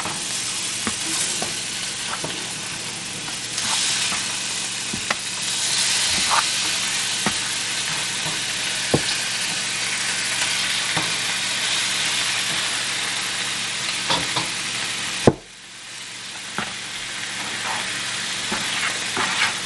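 Metal spoon stirring and scraping damp flour and hot water in a bowl, with scattered light clicks of the spoon against the bowl, over a steady sizzling hiss from cooking on the stove. About fifteen seconds in there is a sharp knock, after which the hiss drops away and slowly builds back.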